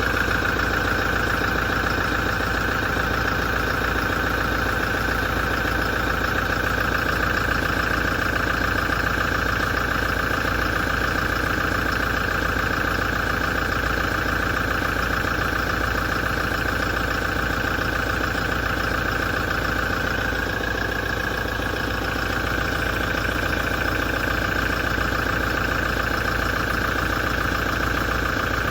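2017 Toyota diesel engine idling steadily with a knocking, metallic vibrating grind, a noise that appeared after a major service.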